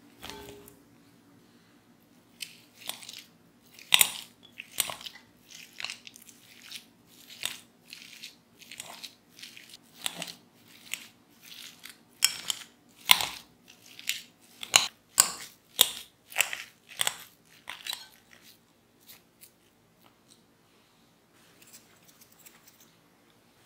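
Metal wire potato masher pressing boiled potatoes in a glass bowl: a run of soft crunching strokes, about one or two a second, starting a few seconds in and stopping well before the end.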